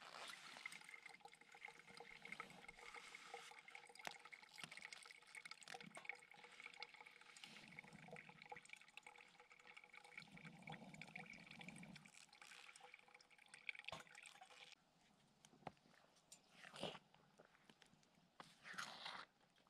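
Faint simmering of a pot of porridge cooked over a twig-burning Bush Buddy wood stove: a steady low hiss with light bubbling and small ticks. About three-quarters through it falls quieter, and a wooden stick stirs and scrapes in the pot a couple of times.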